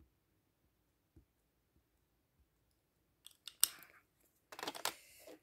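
Small plastic ink pads and a clear stamp block being handled while inking a rubber stamp: faint dabbing taps at first, then about three and a half seconds in a sharp click with a few lighter clicks, and a second later a short rustling scrape.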